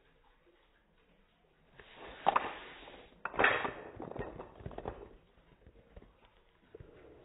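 Wooden Jenga tower collapsing: the blocks clatter down onto the mat in a quick run of knocks, with the two loudest hits about two and three and a half seconds in, thinning out to a few last knocks by about five seconds.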